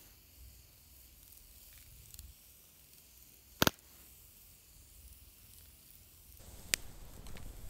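Pieces of grouse frying, a faint steady sizzle. A sharp double clink about three and a half seconds in is the loudest sound, with another clink near the end as handling noise grows louder.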